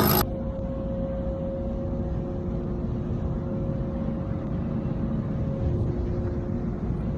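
A homemade aluminum-melting furnace running: a steady low roar from its burner and air blower, with a faint steady hum on top. A louder, hissier sound cuts off abruptly just after the start.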